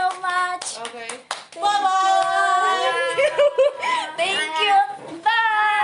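A small group of people singing and shouting together, with hands clapping along.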